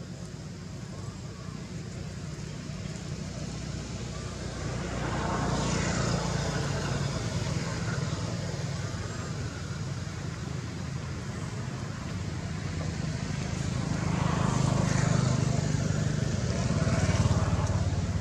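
Low engine rumble of passing motor vehicles, swelling and fading twice, about five seconds in and again near the end.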